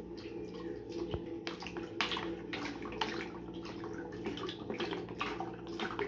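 Cooking oil pouring from a plastic bottle into a plastic blender jar, glugging and splashing unevenly as air gulps back into the bottle.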